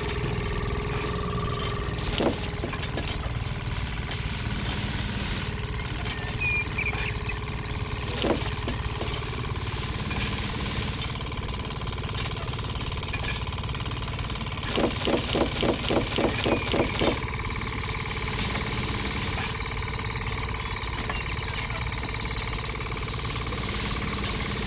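Small motor driving a miniature belt-driven rice-hulling machine, running with a steady hum. There are two short knocks, and in the middle a run of about ten quick rhythmic pulses.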